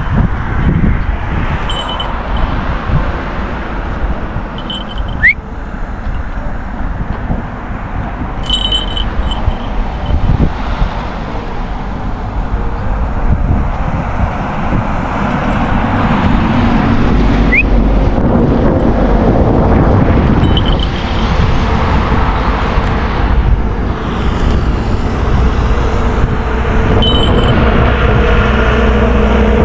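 Road traffic passing, a steady rumble of vehicles that grows louder in the second half, with a brief high chirp about five seconds in and another about two-thirds of the way through.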